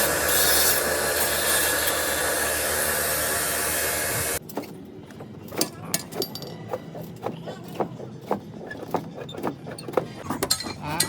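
Loud, dense background music stops abruptly about four seconds in. It gives way to scattered light clicks and knocks of tools being handled in a workshop.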